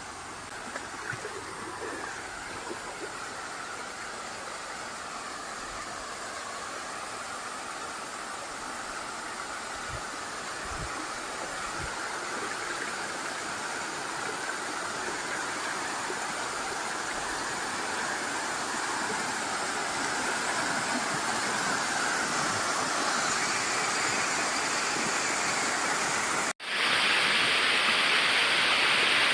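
Steady rush of falling water from a waterfall, growing gradually louder. Near the end it drops out for an instant and comes back louder and brighter.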